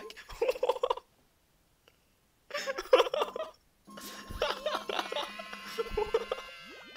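High-pitched cartoon character voices from an anime, squealing and giggling in short bursts with a silent gap between. In the second half they go on over light background music and end in a shriek.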